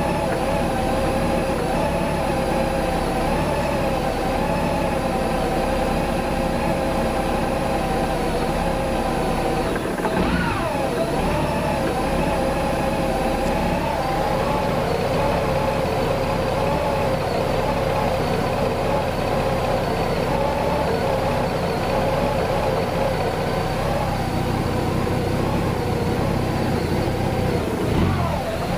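Honda GL1800 Gold Wing's flat-six engine idling, its pitch wavering slightly, with a brief swoop down and back up about ten seconds in and again near the end. This is the rough idle that the owner is tracing to fuel pump voltage surges.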